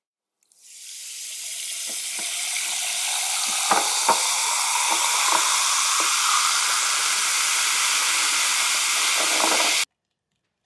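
Soda water poured from a plastic bottle into a tall glass packed with ice, fizzing in a steady hiss that builds over the first few seconds, with a few sharp cracks and clicks from the ice. The fizzing cuts off abruptly near the end.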